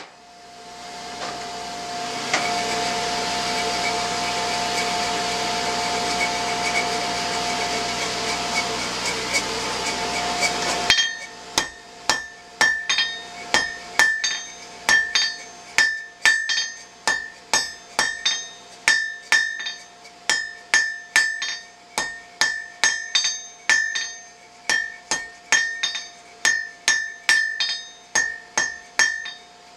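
A forge blower runs steadily for about the first ten seconds, then cuts off suddenly. Then comes a steady run of hammer blows on hot steel over an anvil, about two a second, each with a bright ring from the anvil.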